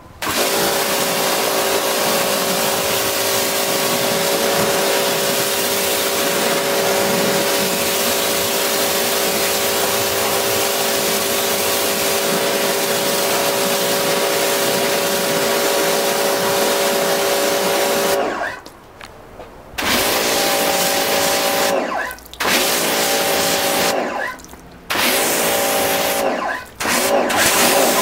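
Pressure washer running: a steady motor tone under the hiss of its water jet as it rinses foam off a car panel. In the last ten seconds the trigger is let go and pulled again, and the spray and motor stop and start up again four times.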